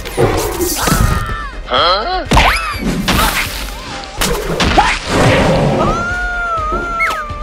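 A run of cartoon sound effects: a creature roar at the start, then repeated thuds and whacks mixed with quick squeaky sliding whistles. A held whistle-like squeal wavers near the end.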